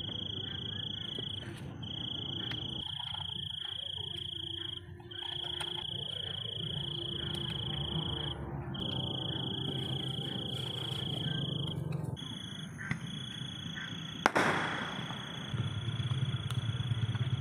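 A cricket trilling: a steady high note that runs in long stretches broken by short pauses, over a low background rumble. One sharp click comes about fourteen seconds in.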